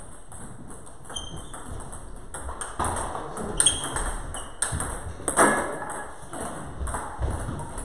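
Celluloid-type table tennis ball clicking off rubber paddles and the table during a rally, a handful of sharp hits with a brief high ring. The loudest hits come about three and a half and five and a half seconds in.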